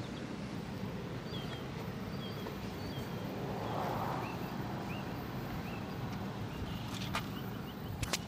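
Outdoor background: a steady low hum with faint scattered bird chirps. There is a brief swell about four seconds in and a single click near the end.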